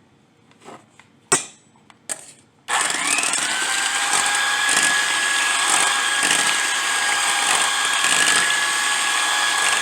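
A few light clicks and knocks of handling, then an electric hand mixer switches on about two and a half seconds in. Its motor spins up with a brief rising whine and runs steadily while beating eggs, oil and vanilla.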